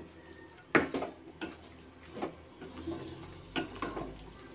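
Wooden spatula knocking and scraping against an aluminium pot while stirring chopped vegetables: a handful of irregular knocks, the loudest about three-quarters of a second in.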